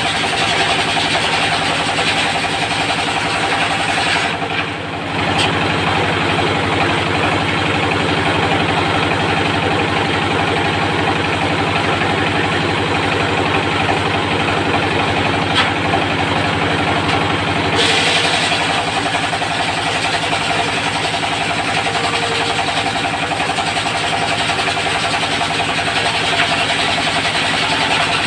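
Diesel engine of a locally built portable circular sawmill running steadily at constant speed, with a hiss above the engine note. The level dips briefly about five seconds in, and the high hiss grows brighter about eighteen seconds in.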